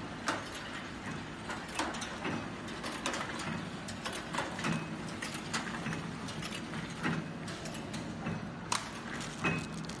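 Servo flow-wrapping packing machine and its short infeed conveyor running: a steady mechanical hum with irregular sharp clicks and clacks about once or twice a second as remote controls are fed through and sealed in film.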